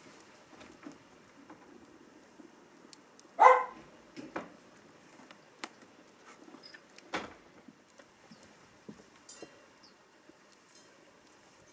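Small dog barking once, a short sharp bark about a third of the way in, with a weaker bark-like sound a few seconds later and scattered faint clicks.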